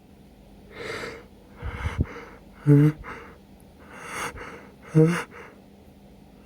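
A person's breath hitching before a sneeze: a few sharp, noisy inhalations and two short voiced gasps about two seconds apart. The sneeze does not come.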